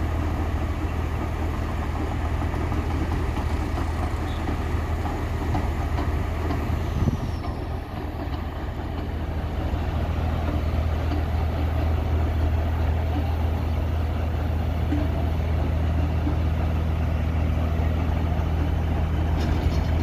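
Diesel engine of a Sri Lanka Railways Class S9 diesel multiple-unit power car idling, a steady low hum.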